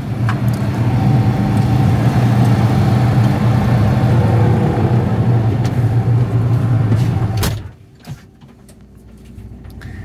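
Combine harvester engine running steadily at idle, loud and close. About three-quarters of the way through there is a single clunk, and the engine drops abruptly to a muffled hum, as heard once the cab door is shut.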